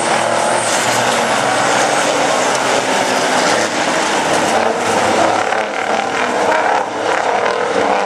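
Several diesel semi-truck race rigs running together at racing speed, a steady loud drone of engines.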